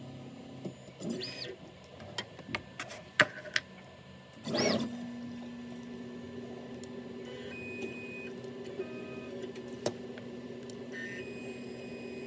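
Onefinity CNC router's stepper motors jogging the gantry through an automatic X-Y-Z touch-probe routine. There are two quick moves with a rising-and-falling whine and a few sharp clicks, then about halfway through a slow, steady motor hum as the probe creeps toward the block.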